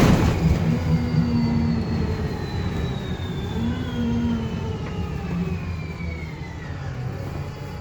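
VDL SB200 / Wright Commander single-deck bus in motion: a whirring whine that falls steadily in pitch over the bus's engine and road rumble, as the bus slows.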